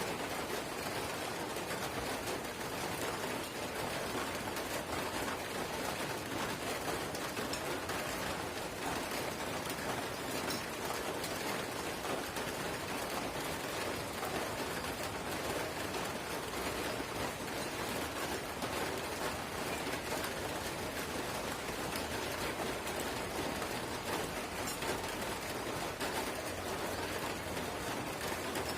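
Drizzle: light rain falling steadily, a dense, even patter of small drops.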